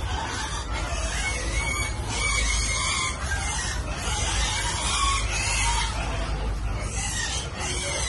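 Farm animals calling, short high calls repeated throughout, over a steady low rumble.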